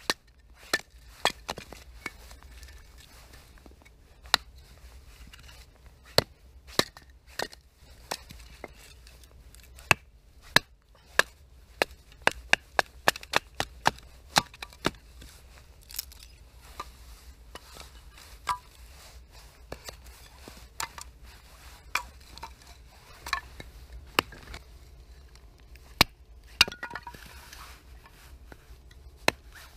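Firewood being split into kindling with a knife and a wooden baton: sharp wooden knocks and cracks at irregular intervals, with split sticks knocking together.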